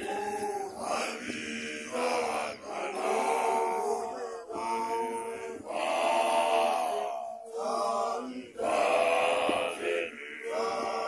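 Young Basotho male initiates chanting in phrases of a second or two, with short breaks between them.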